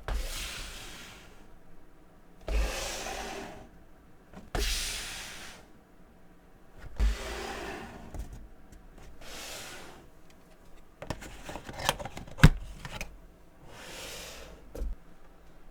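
A run of sliding, rubbing hisses, each starting with a soft thump, about every two seconds, like packaging being handled and slid over a surface. Near the end comes a patter of clicks and one sharp knock.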